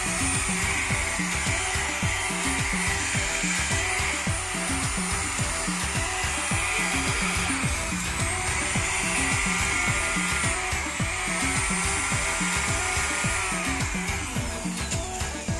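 Background music with a steady beat over the high whine of a trim router's electric motor running, its pitch slowly rising and falling, as the router is run on its newly fitted armature.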